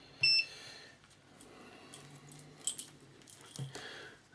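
Digital multimeter's continuity beeper giving one short, high beep just after the start, then light clicks and scratches of the meter probes against the microphone's circuit board as capacitors are checked for shorts to ground.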